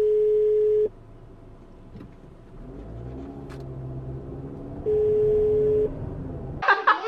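Two steady electronic beeps, each about a second long and about five seconds apart, are the loudest sound. Between them a car engine rises in pitch as the car pulls away from a standstill.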